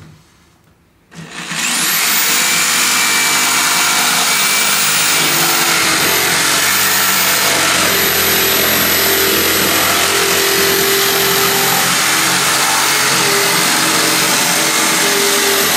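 DeWALT DW331 corded jigsaw switching on about a second in and running steadily as its blade cuts a 30-degree bevel through 3/4-inch plywood, set to speed 5 with orbital action at 1.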